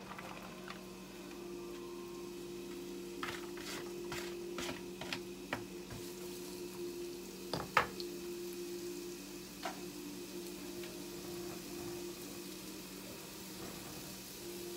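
Chopped onions frying in oil in a nonstick skillet over a gas flame: a faint steady sizzle under a low hum. A few light clicks come a few seconds in, and one sharper knock near the middle.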